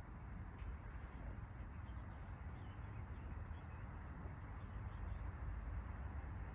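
Outdoor background sound: a steady low rumble, with a few faint bird chirps now and then.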